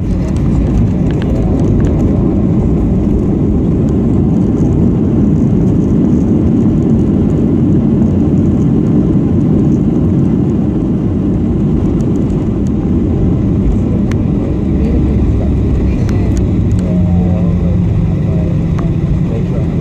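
Jet airliner cabin noise while taxiing after landing: a steady low rumble of the engines and airflow, with a steady hum coming in near the end.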